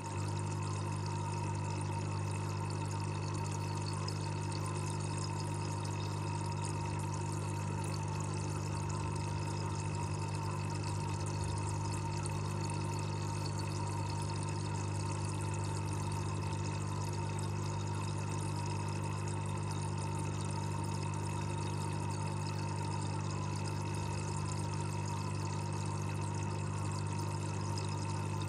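Aquarium aeration heard through the water: air bubbles streaming steadily from the tank bottom, with a constant low hum underneath and a faint steady whine.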